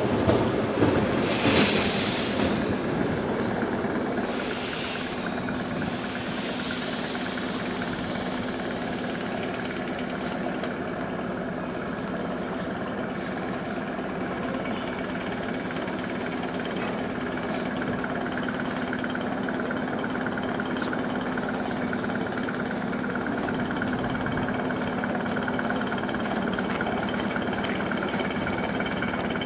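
ER2-series electric commuter train at the platform: a steady electrical hum with a few loud bursts of air hissing in the first six seconds.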